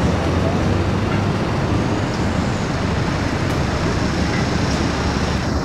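Diesel locomotive's engine running with a steady low hum and rumble as the locomotive rolls slowly forward along the track.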